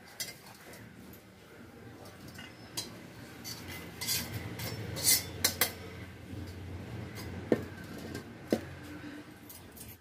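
A metal spatula scraping and clinking around an iron kadhai, then a few sharp metal knocks against the pan as its dry-roasted contents are scraped out onto a plate.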